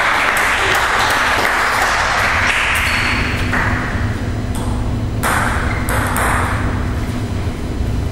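Table tennis ball bouncing, a series of sharp clicks about every half second at first, then more spaced, over a steady hiss of hall noise.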